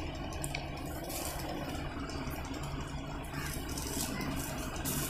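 Low background hum with faint rustling of silk saree fabric as it is handled and spread out.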